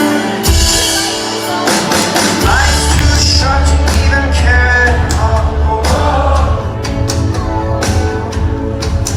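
Live rock band playing with singing: sustained guitar and keyboard notes and drum hits, with a heavy bass low end that comes in about half a second in and swells about two and a half seconds in.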